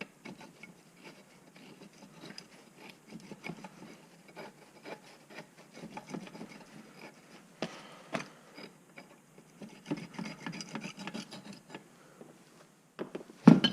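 Stiff adjusting nut on a fire-damaged aluminium Ridgid pipe wrench being worked along its threads: irregular gritty scraping and small clicks of metal rubbing, still hard to turn. One louder knock near the end.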